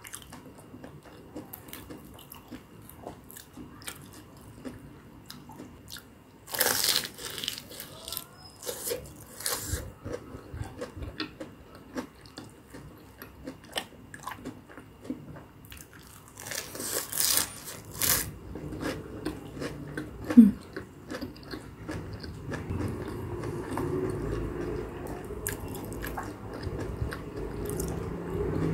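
Close-up eating sounds: two loud crunchy bites into a crumb-coated fried corn dog dipped in tteokbokki sauce, about six seconds in and again about seventeen seconds in, with wet chewing clicks in between. A low steady rumble builds in the background over the last third.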